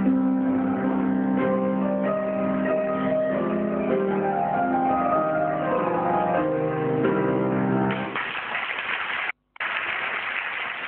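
Grand piano playing the last bars of a song's accompaniment with held notes. At about eight seconds the music gives way to audience applause, broken once by a brief gap.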